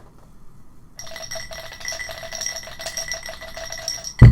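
Dice shaken in a container: a fast rattle with a ringing tone for about three seconds, ending in one loud thump near the end.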